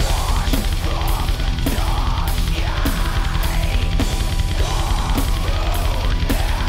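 Heavy metal music: the full band comes in right at the start, with rapid kick-drum strokes and a snare hit about every half second, the drums played on an electronic drum kit.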